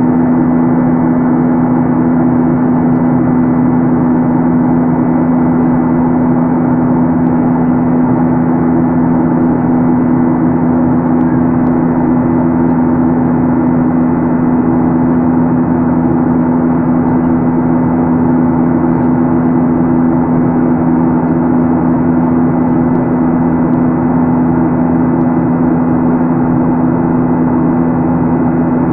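Steady in-flight cabin noise inside a Boeing 737-800: its CFM56-7B turbofans give a constant low hum with a few steady tones over a loud rush of air, unchanging throughout.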